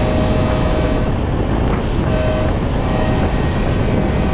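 Passenger train running at speed: a steady, loud rumble, with a thin constant tone that drops out for about a second a little after one second in.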